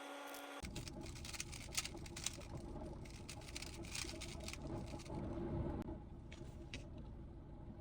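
Rubik's cube being turned by hand, its plastic layers clicking in quick, irregular runs. A brief steady tone cuts off about half a second in.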